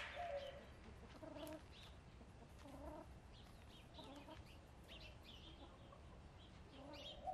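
Domestic hens clucking quietly: a few short, low clucks spaced out over several seconds.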